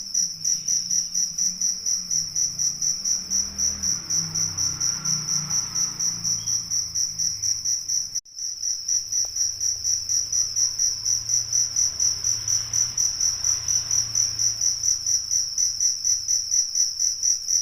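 Cricket chirping: a high, even tone in rapid, regular pulses, with a brief gap about eight seconds in.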